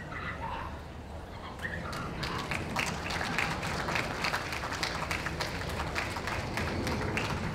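Ringside spectators applauding. The clapping starts about two seconds in and carries on as a dense patter.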